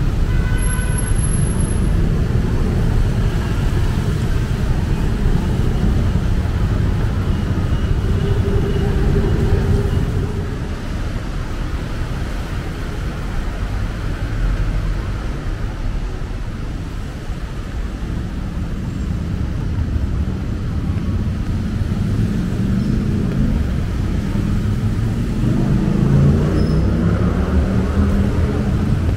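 City road traffic: a steady low rumble of cars and other vehicles running past, with one vehicle passing louder near the end.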